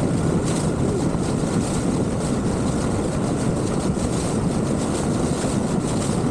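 Outboard motor of an Avon Searider RIB running at speed, with water rushing and spraying off the hull, at a steady level.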